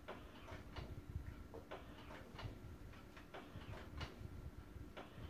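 Baby swing in motion, its mechanism making faint, uneven light clicks, about two or three a second, over a faint steady hum.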